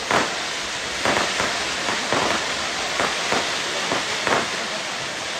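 Aerial fireworks bursting: a string of sharp bangs, roughly one or two a second, over a steady hiss.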